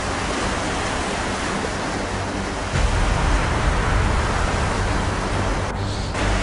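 Wind rushing over the microphone and small waves washing onto a sandy shore, a steady hiss that turns heavier and louder in the low end about three seconds in.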